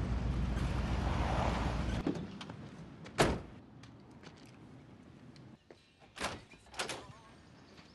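A steady low rumble that cuts off about two seconds in, then a single loud door thunk about three seconds in, and two softer knocks near the end.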